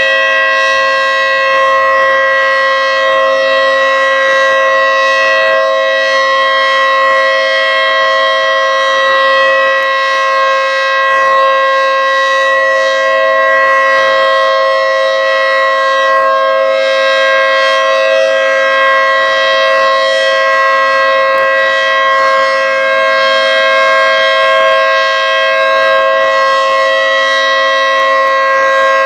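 Federal Signal 3T22 three-tone outdoor warning siren sounding its steady alert signal on a test: a loud chord of several steady tones held unbroken, swelling and fading slightly in loudness.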